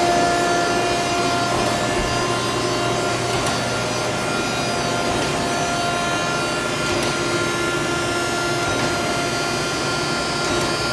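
Okamoto horizontal spindle surface grinder running: its spinning grinding wheel gives a steady whine with several high tones over a scratchy grinding noise.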